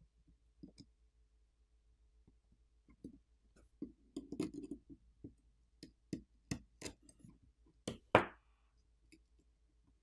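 Small clicks and taps of a metal pry tool and fingertips on the internal parts of an iPhone 15 Pro as a component is worked loose: a scattered run of sharp clicks, busiest from about four to eight seconds, with the loudest, slightly ringing click near eight seconds.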